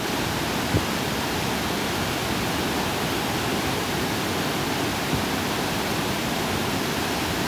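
Floodwater pouring over a concrete dam's overflow crest and down its spillway face, a steady rushing roar of falling water.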